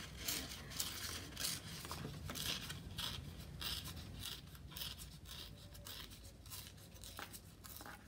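White cardstock being torn by hand in a slow, controlled tear along its edge: a faint, irregular ripping crackle in many short bits, thinning out toward the end.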